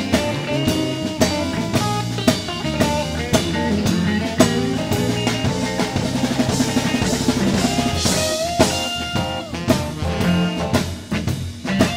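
Live electric blues band playing, with the drum kit to the fore keeping a steady beat under bass and guitar lines.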